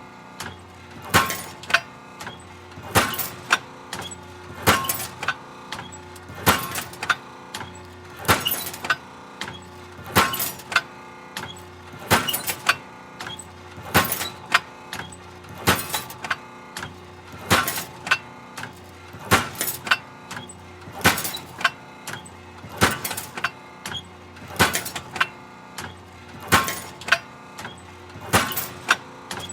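Hydraulic metal shear running, each stroke a sharp metallic bang with smaller clicks around it, repeating evenly about once every two seconds over a steady machine hum.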